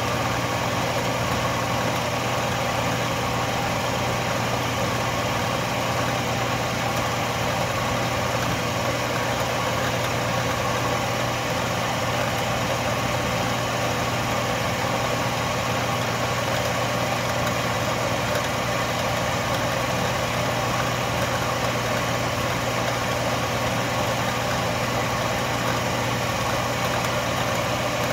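Metal lathe with a milling attachment running as a 45-degree drill-point end mill cuts a V-groove 50 thou deep into a metal block: a steady motor hum with the even noise of the cut.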